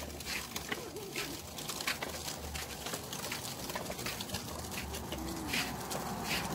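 Child's bike with plastic training wheels rolling along a concrete sidewalk, with light clicks and rattles at irregular intervals over a low rumble of wind on the microphone.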